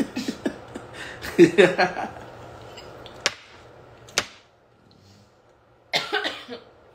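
A man laughing, then two sharp clicks about a second apart, a moment of near quiet, and another short vocal burst near the end.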